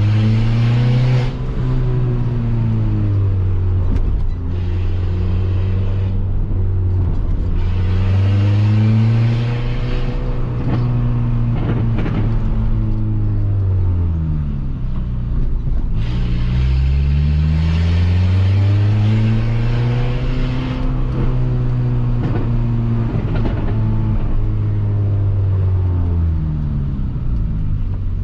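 Straight-piped Peugeot 206 1.4 four-cylinder engine, with only the exhaust pipe and no muffler, pulling the car through traffic. Its note rises and falls about three times as the car speeds up and slows.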